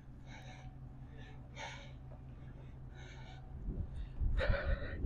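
A man breathing heavily close to the microphone, a breath about every second and a half. Under it there is a steady low rumble, with heavier low thumps and a louder breath near the end.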